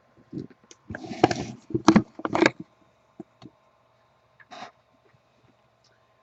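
Handling noises on a desk: a quick cluster of knocks and rustles, then two light taps and a brief rustle.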